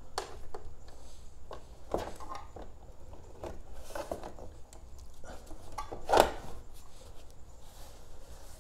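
Hands working a garage door opener's plastic light cover: scattered rubbing, clicks and light knocks of plastic, with one louder knock about six seconds in.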